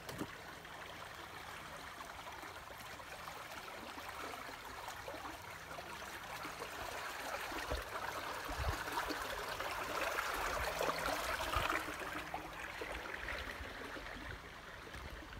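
Flowing river water, a steady wash that grows louder for a few seconds after the middle and eases off again near the end.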